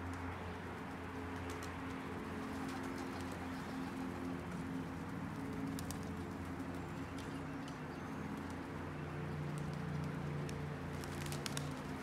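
Domestic pigeons cooing, low and continuous.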